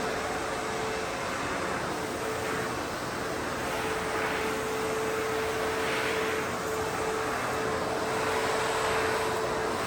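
ProTeam Super Coach backpack vacuum running steadily: a constant motor tone under a loud rush of air that swells and fades every couple of seconds.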